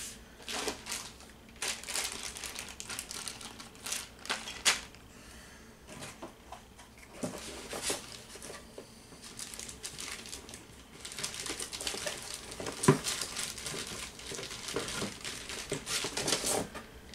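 Packaging being rummaged through in a cardboard box: scattered rustles and clicks, growing into denser crinkling and scraping in the second half, with one sharper knock, as the stand is pulled out of its wrapping.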